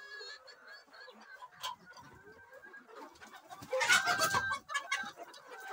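Flock of chickens and roosters clucking, with a loud flurry of squawking and wing-flapping about four seconds in as the birds scatter.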